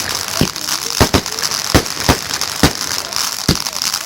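Fireworks going off: about eight sharp bangs at irregular intervals over a continuous crackling hiss.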